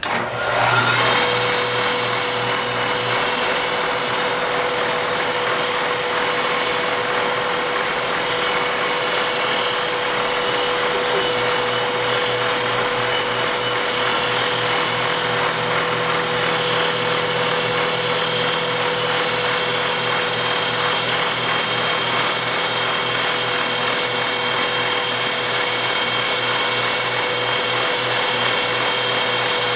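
Milling cut on a Bridgeport mill: the end mill radiuses the end of a small metal part as a CNC-driven Sherline rotary table turns it. A steady cutting noise with a constant whine.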